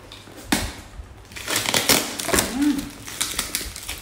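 A knife cutting and tearing plastic wrap and packing tape on a cardboard parcel: crinkling and scraping in quick strokes, with a sharp knock about half a second in.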